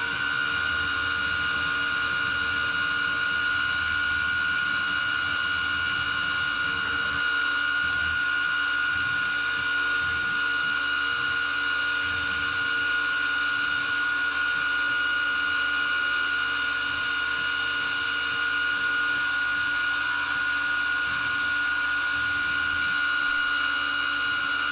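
G0704 benchtop milling machine converted to CNC, running a program: a steady high-pitched motor whine with an uneven low rumble as the end mill cuts into a wooden block.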